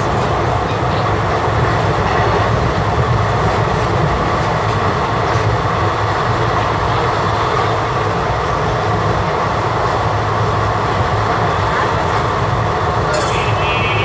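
Express train passenger coach running at speed, heard from inside by an open barred window: a steady loud rumble of wheels on rails mixed with rushing air. Near the end there is a brief high-pitched sound.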